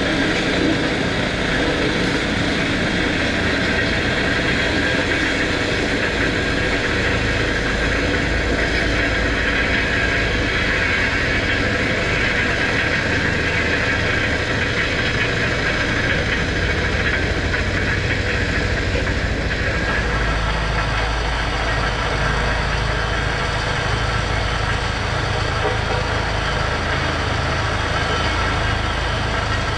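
Diesel engine of heavy earthmoving machinery running steadily, its tone shifting about twenty seconds in.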